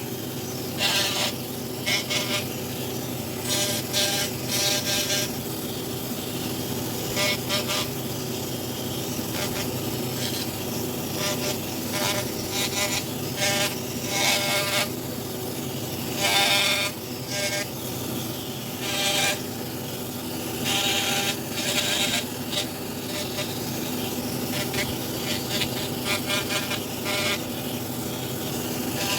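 Handheld power carving tool running with a steady whine, with repeated short, louder scratchy bursts as the bit bites into the wood.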